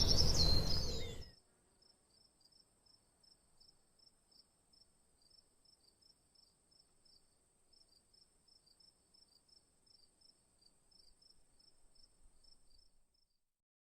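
A loud sound cuts off about a second in, leaving faint crickets chirping at about three chirps a second over a thin steady high whine, which stops near the end.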